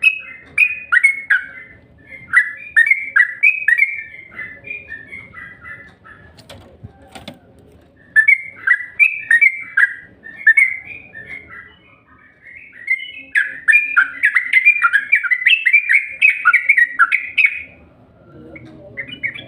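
Yellow-vented bulbul (trucukan) song: loud phrases of quick, chirpy down-slurred notes with short pauses between them, the densest run near the end. This is the kind of recording played as a lure call to get caged bulbuls singing.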